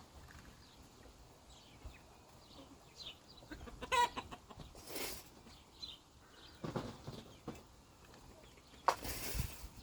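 Chickens clucking with short calls, one clearer cluck about four seconds in, among a few brief rustling noises.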